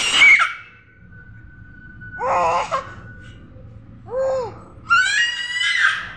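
A baby laughing in short, breathy bursts, ending in a long high-pitched squeal of laughter about five seconds in.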